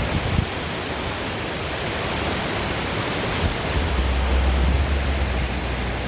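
Housatonic River rapids rushing below a bridge: a steady roar of white water. A low rumble joins in about four seconds in.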